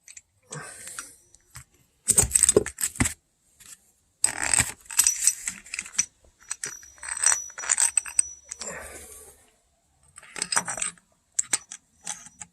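Metal tool parts clinking and rattling in several short bursts as a harmonic damper installation tool is handled and fitted to the crankshaft snout.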